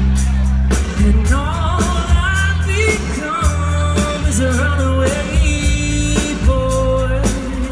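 Live pop-rock band playing: a sung lead vocal melody over sustained bass notes, guitar and a steady drum beat.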